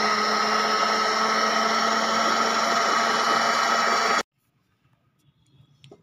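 Electric food processor (chopper) running steadily with a whine as it chops moong and mash dal in its bowl, then switched off about four seconds in, stopping abruptly.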